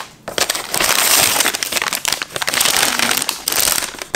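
Paper rustling and crinkling loudly as tissue paper and paper bread bags are handled inside a paper shopping bag, with a few short pauses.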